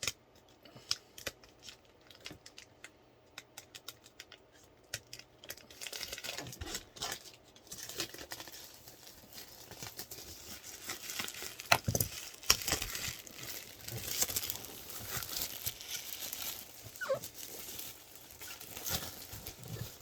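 A utility knife slits the tape on a power supply box with small scattered clicks. From about six seconds in comes steady rustling and crinkling of the box and its packaging, with a sharp knock about halfway through.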